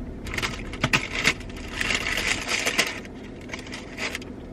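Crackling and clicking of plastic and paper takeout food packaging being handled, in a dense run over the first three seconds and a few more clicks near the end.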